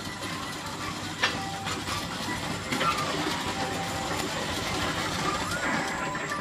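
Children's ride tractor car rolling along its guided track, with a sharp click about a second in.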